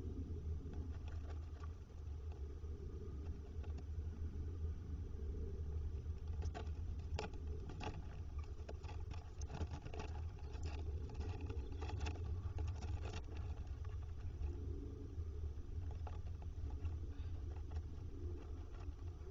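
Little owl shifting about in the wood-shaving bedding of a nest box, with a run of scratchy clicks and rustles in the middle, over a steady low hum.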